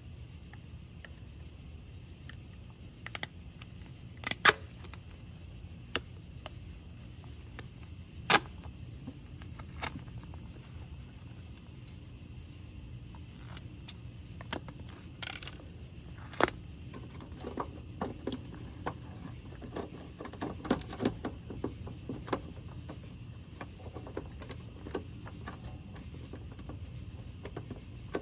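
Scattered clicks, taps and short rustles of hands working with duct tape, taping the factory exhaust valve's unplugged wiring harness up out of the way under the car, over a steady high chirring of crickets.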